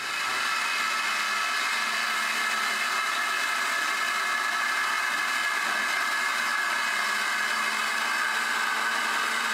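Hyperbaric chamber's exit valve venting compressed air during decompression: a loud, steady rush of escaping air that sounds similar to a jet engine.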